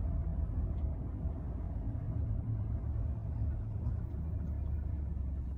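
Steady low rumble of a car running, heard from inside the vehicle.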